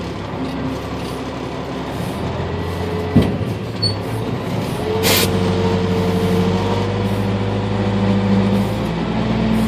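A truck engine idling steadily, with a sharp knock about three seconds in and a short hiss about five seconds in. The engine's note shifts upward near the end.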